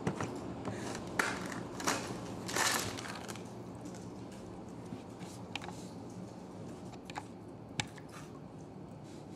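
Packaging rustling a few times in the first three seconds, then scattered sharp crunches and clicks as a Pepero chocolate biscuit stick is bitten, over a steady low office room hum.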